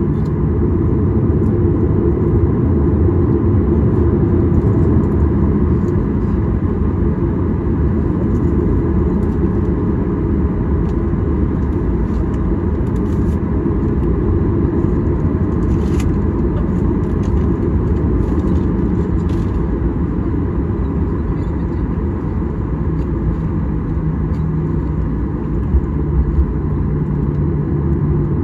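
Cabin noise of a Boeing 737-800 taxiing: its CFM56-7B turbofan engines run at low thrust under a steady low rumble, with a faint hum and a few light rattles midway.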